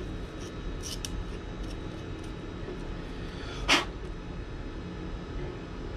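Tool handling at a workbench: a couple of faint clicks about a second in and one sharp click about two-thirds of the way through, over a low steady hum.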